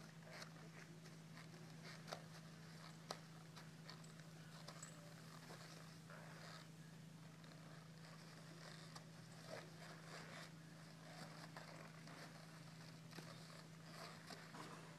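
Near silence: a faint steady hum with scattered soft clicks and short scrapes.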